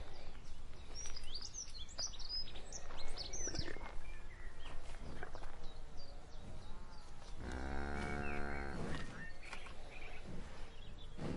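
Cows lowing and snorting: a few short breathy snorts, then one long moo about two-thirds of the way through, over steady outdoor noise with birds chirping early on.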